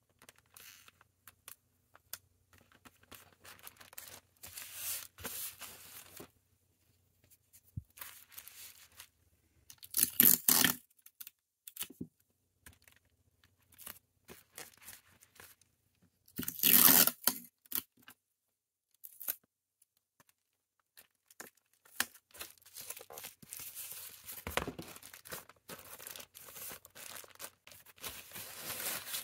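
Hands handling plastic packaging and paper: rustling and crinkling of plastic bags and a grey plastic mailer bag, with two louder tearing sounds about ten and seventeen seconds in, and steadier rustling near the end.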